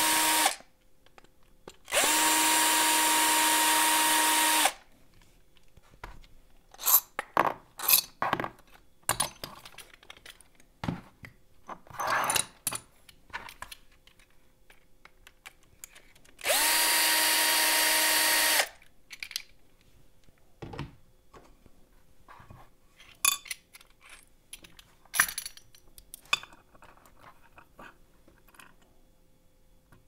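Cordless drill driver backing out the screws of a Schlage deadbolt in three short runs, each with a steady motor whine that spins up and winds down: one ending about half a second in, one from about 2 s to nearly 5 s, and one lasting about two seconds around the middle. Between the runs, sharp clicks and clatter of small metal lock parts being handled and set down.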